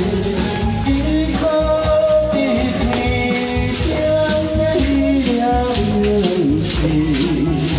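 A pop song played over a PA loudspeaker: a sung melody over a backing track with a steady shaker beat.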